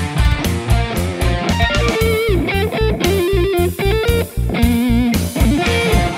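Rock music with electric guitar over a fast, steady drum beat, with a lead guitar line of wavering notes in the middle.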